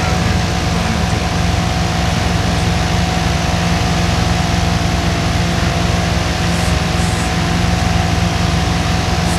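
Steady, loud machine noise: a constant low hum under an even hiss, unchanging throughout.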